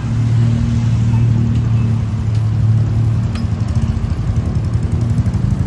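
A motor vehicle's engine running close by with a low, steady hum that settles into a fast, even pulsing idle about halfway through.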